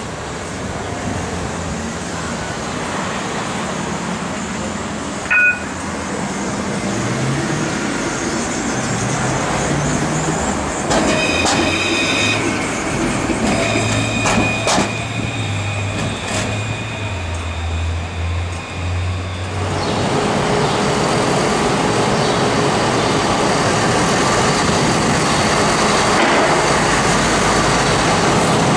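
A C1 Class (Alstom Citadis) electric tram pulls away from the stop: there is a short beep about five seconds in, and its traction motors hum in tones that step up in pitch as it accelerates past. About twenty seconds in, this cuts to the steady running of a diesel city bus under the interchange roof.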